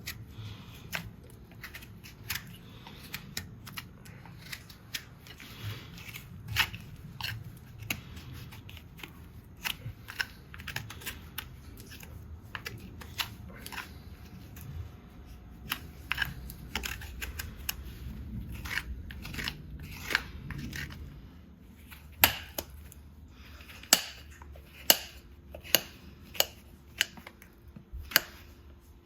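Farrier's hoof-trimming tools cutting horn: a run of sharp snips and clicks. In the last several seconds come louder snaps at a steady pace of about one a second.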